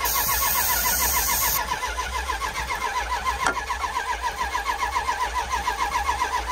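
Red Dodge 1500 pickup's starter cranking the engine over in a fast, even rhythm without it catching, a sign the engine won't start even on starting fluid. For about the first second and a half, starting fluid hisses from an aerosol can into the intake.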